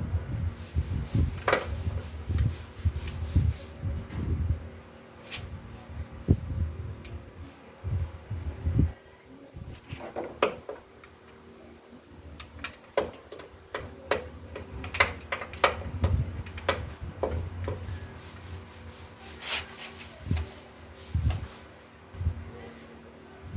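Hand tools and metal parts knocking, clicking and rubbing at irregular moments while a water pump is bolted onto a car engine, with a faint steady hum underneath. Low dull thuds and handling noise come first; from about ten seconds in, the sounds turn into sharper, scattered metallic clicks and knocks.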